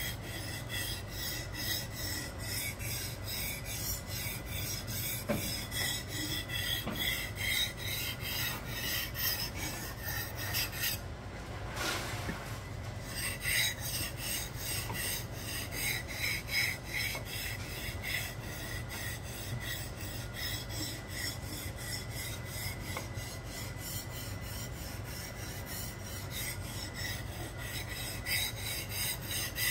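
Steel knife blade being drawn back and forth across a whetstone in quick, even scraping strokes, about three a second, with a short pause about eleven seconds in.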